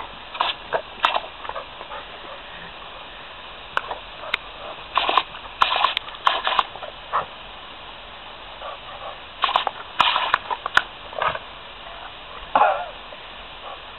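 Yellow Labrador retriever biting and gulping at the spray from a garden hose: irregular bursts of snapping, slurping and snorting from its mouth, coming in quick clusters with pauses between.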